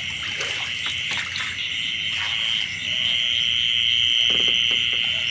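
Steady, high-pitched night chorus of calling frogs and insects, getting louder about three seconds in, with a few soft knocks in the first two seconds.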